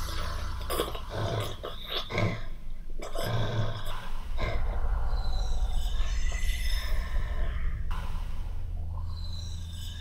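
Horror soundscape: a low rumbling drone under layered breath-like and growl-like sound effects, with wavering high moaning tones drifting in about six seconds and nine seconds in.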